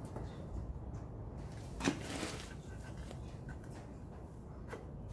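Small knocks from hand-tool work on a wooden board: one sharp click about two seconds in and a fainter one near the end, over a low steady hum.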